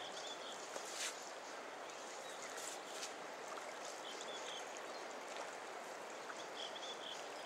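Steady rush of a wide river flowing past the bank, with a few short high bird chirps and a couple of faint clicks.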